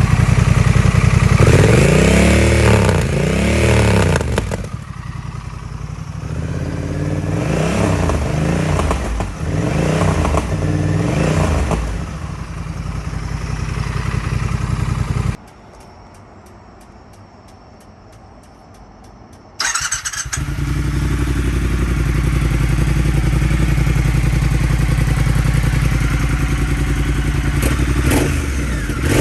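Honda Rebel 1100's parallel-twin engine running through an aftermarket muffler with an inner silencer, idling and revved several times in the first twelve seconds. About fifteen seconds in, the sound drops away abruptly for about four seconds, then the engine idles steadily.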